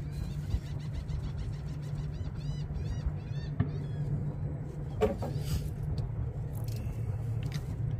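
Outdoor pier ambience: a steady low rumble runs throughout, with birds chirping in quick high repeated calls about two to three seconds in. A brief knock comes about five seconds in.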